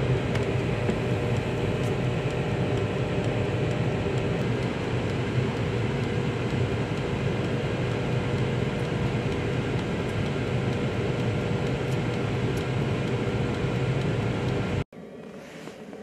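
Cuisinart air-fryer toaster oven running, its convection fan giving a steady loud hum and whoosh while bacon sizzles in the basket. It stops abruptly near the end.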